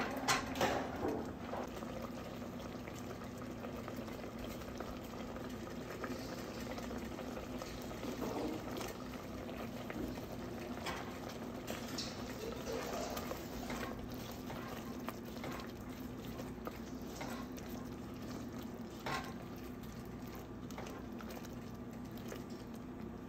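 Thick curry gravy with bell peppers simmering in a pot, bubbles popping and blipping steadily, with a silicone spatula stirring through it now and then.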